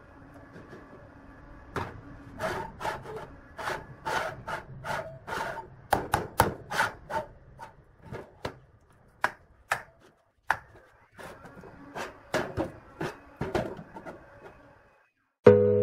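Galvanized square steel tube legs of a folding three-legged chair swung on their hinge pivots, clacking against the metal frame and the steel workbench: a run of irregular sharp knocks with a short metallic ring. Music starts near the end.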